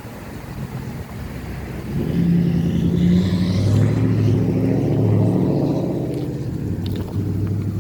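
A car driving past on the road: its engine and tyre noise swell about two seconds in, peak midway, and fade toward the end.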